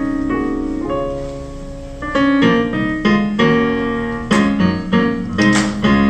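Keyboard music: held chords at first, then struck chords in a steady rhythm from about two seconds in, with a few sharp percussion hits in the second half.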